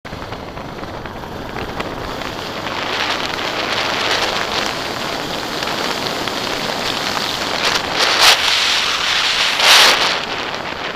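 Wind rushing over the microphone of a motorcycle riding a gravel track, with tyre and engine noise underneath. Two louder gusts come about eight and ten seconds in.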